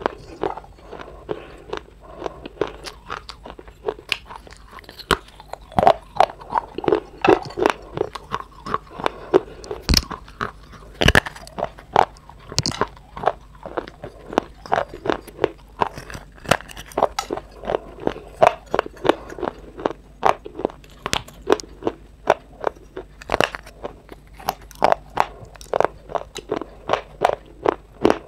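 Dry clay being bitten and chewed close to the microphone: a continuous run of sharp, irregular crunches, about two or three a second.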